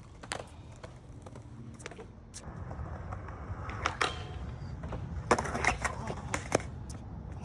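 Skateboard wheels rolling on concrete, building up from about two and a half seconds in, then a sharp knock as the board pops onto a metal handrail and scrapes along it in a boardslide. A cluster of loud sharp clacks follows as the board comes off the rail and hits the ground.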